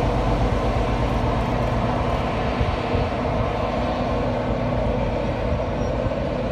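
Diesel engine of a Class 43 HST power car running steadily as the train moves slowly away, its sound easing a little.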